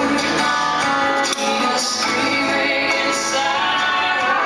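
Recorded pop song with a female singer, played loud over a gymnasium's speakers.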